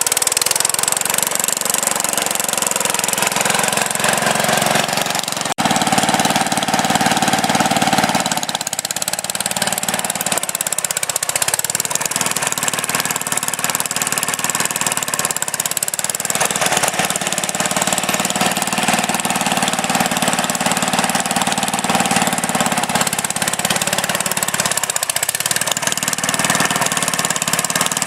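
Sears Suburban garden tractor engine running steadily under load while its front blade pushes dirt, the note dipping briefly a few times. A single sharp click about five seconds in.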